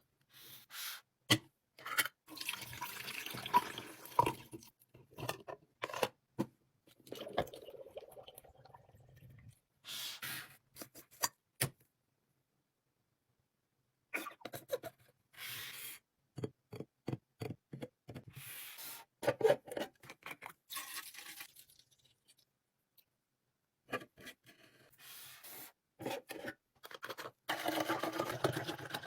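Kitchen restocking sounds: a string of clicks, taps and clatters from handling plastic containers and packaging, with rustling and a stretch that sounds like liquid or loose items being poured. The sounds stop dead twice where one clip cuts to the next.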